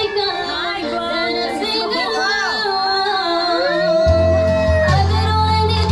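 Karaoke backing track from a videoke machine, with a woman singing along into a microphone, her voice sliding between long held notes; a heavy bass comes in about four seconds in.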